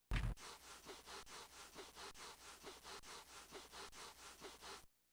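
Cartoon sound effect of a puppy's paws scuffing rapidly over carpet: a rhythmic, scratchy rubbing of about three to four strokes a second, building up a static charge. It opens with a short, loud thump and cuts off abruptly near the end.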